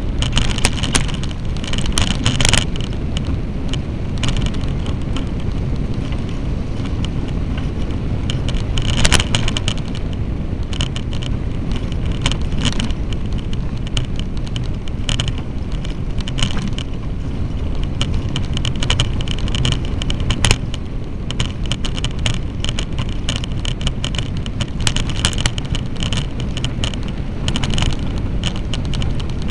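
Bicycle riding over a rough, rutted dirt road, picked up by a bike-mounted action camera: a steady low rumble with frequent irregular rattling clicks as the bike jolts over bumps.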